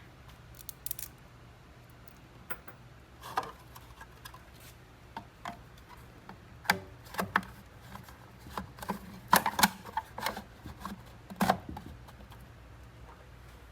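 Irregular clicks, taps and knocks of a bolt, washers and a plastic pulley guard being handled and fitted by hand, the loudest cluster about nine to ten seconds in.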